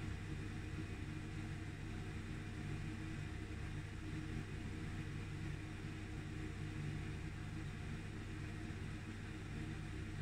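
A steady low electrical hum with a faint hiss underneath: room tone.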